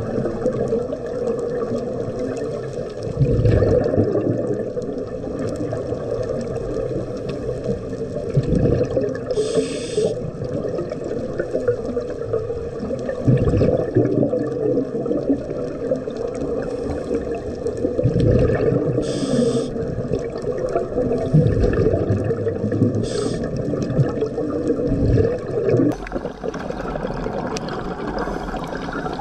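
Scuba diver's regulator breathing underwater: brief hissing inhalations a few times, and rumbling, gurgling bubble exhalations every few seconds over a steady underwater wash.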